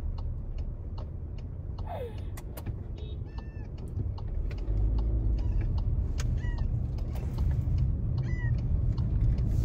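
Cat meowing from inside a plastic pet carrier in a car: about four short, plaintive meows, the first falling in pitch, the cries of a cat upset at being shut in the carrier. Under them is the car's low rumble, which grows louder about halfway through.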